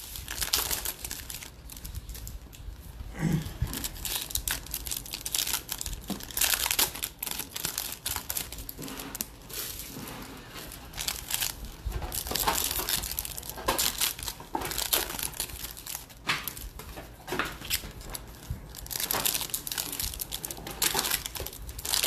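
Foil-lined wrappers of Bowman baseball card packs crinkling and tearing as the packs are ripped open and handled, in irregular bursts; really loud.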